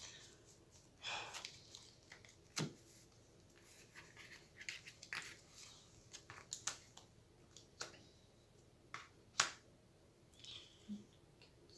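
Playing cards being handled on a tabletop: scattered faint clicks, taps and short swishes as cards are gathered, shuffled and laid down, with a sharper snap about two and a half seconds in and a louder one about nine and a half seconds in.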